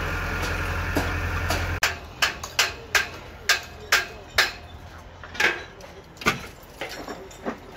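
Small crawler bulldozer's diesel engine running steadily, cut off abruptly about two seconds in. Then a string of about ten sharp, irregular metallic knocks like hammer blows on steel formework panels, most of them in the following few seconds.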